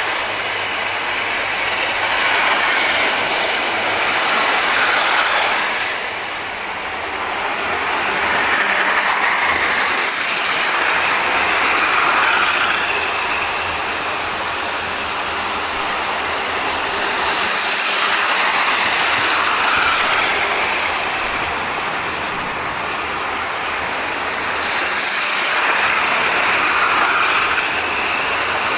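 00 gauge model trains running on metal sectional track: a steady whirr of small electric motors and wheels on the rails. The sound swells and fades every few seconds as trains pass close by.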